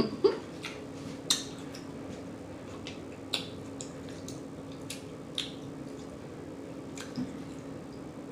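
Wet mouth smacks of a person chewing food with the mouth open: about six short, separate clicks a second or two apart, over a steady low hum.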